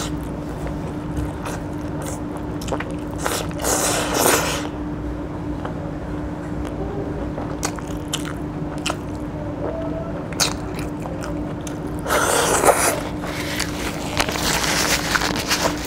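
Close-miked eating: a man biting, chewing and sucking saucy chicken feet in curry held in his hand, with wet mouth noises and small crunches. There are two louder bursts, one about four seconds in and one around twelve seconds in.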